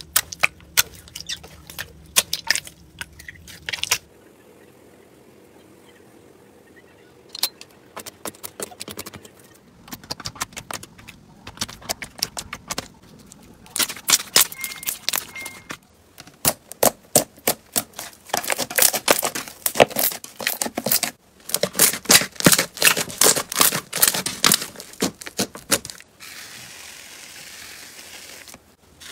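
Slime being pressed, squeezed and poked by hand, giving dense runs of sharp crackling clicks and pops from trapped air, with quieter stretches in between.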